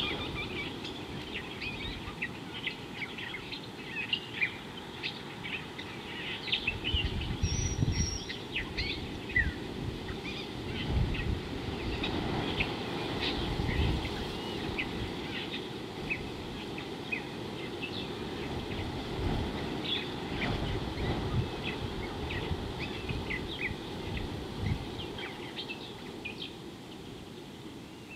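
Many birds chirping and calling in short, scattered notes, with irregular low gusts of wind noise rumbling on the microphone.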